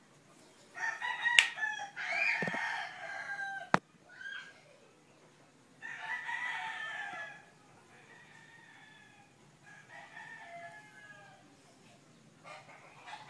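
Rooster crowing several times, the loudest crows in the first half and fainter ones later. Two sharp clicks near the start, the first during the opening crow.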